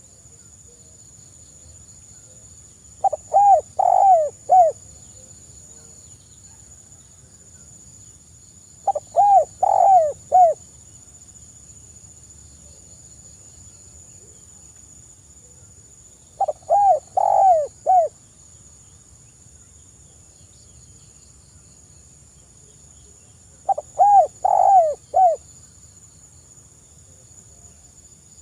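Spotted dove (tekukur) cooing: four repeated phrases of four or five low, rounded coos each, roughly every seven seconds. A thin, steady, high-pitched whine runs underneath.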